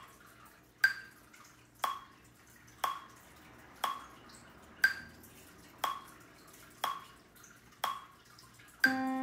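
Metronome clicking steadily at about one beat a second, every fourth click higher, counting in two bars. On the next accented beat, near the end, a single sustained pitched note sounds, around middle C, and rings on.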